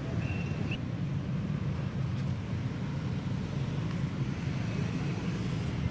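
Steady low outdoor rumble with no clear events, with a brief high note about a quarter second in.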